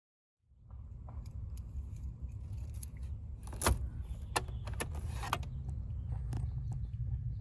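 Keys jingling on a keyring as a key is worked in a car's steering-column ignition lock, with several sharp clicks (the loudest near the middle), over a steady low rumble.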